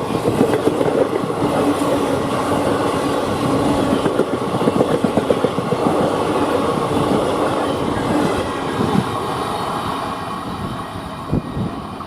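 Indian Railways passenger train rolling past at speed, its wheels clattering in quick, uneven knocks over the rail joints. The clatter fades over the last few seconds as the train moves away.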